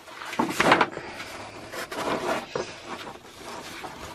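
Cork tile being shoved into a snug pocket of a fabric pin book: irregular scraping and rustling of cork against the fabric, loudest about half a second in, with smaller scrapes around two seconds.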